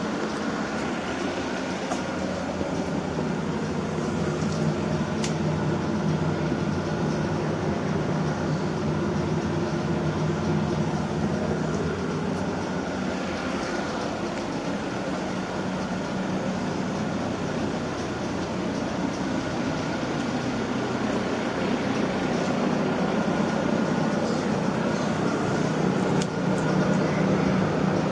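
Steady mechanical hum: a low drone with a fainter high whine above it, getting a little louder near the end.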